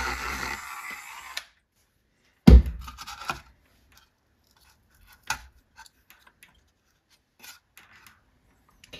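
A handheld rotary tool running, then spinning down within the first second or so after enlarging a hole in a cardboard template. About two and a half seconds in comes a sharp knock, the loudest sound, followed by light clicks and rustles of a plastic gear and cardboard being handled and fitted.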